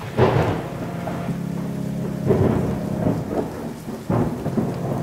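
Thunderstorm: steady rain with rumbles of thunder that swell three times, about a quarter second in, a little after two seconds and near four seconds.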